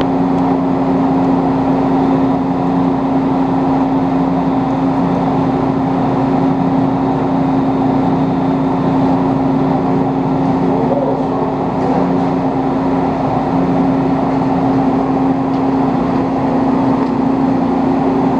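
Metal lathe running steadily with a continuous hum, taking a cut on a sawmill mandrel's steel fast collar that is throwing hot blue chips.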